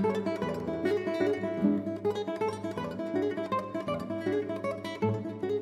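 Background music on plucked and strummed acoustic guitar, a quick run of notes.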